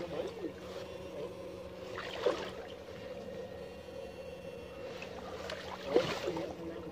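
Shallow muddy ditch water splashing and sloshing as electrofishing poles are dipped and swept through it while wading, in three brief splashes, the loudest near the end, over a steady faint hum.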